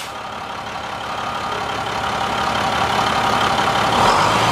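International dump-plow truck's diesel engine running while the hydraulic hoist raises the dump body, getting gradually louder, with a thin rising whine starting near the end.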